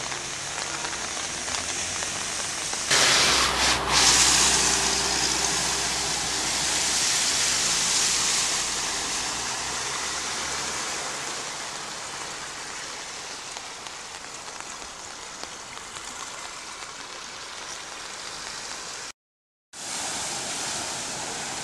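Steady rushing noise of rain and running floodwater. About three seconds in it jumps louder, with a low engine rumble for several seconds as vehicles drive through the flooded road, throwing up spray. The sound cuts out for a moment near the end.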